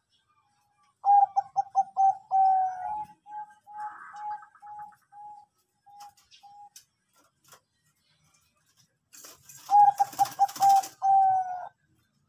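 Bangkok-strain zebra dove (perkutut) cooing. A rapid run of staccato coos ends in a drawn-out falling note, followed by slower single coos that thin out. About nine seconds in, a rush of noise comes up under a second quick run of coos that again ends in a long note.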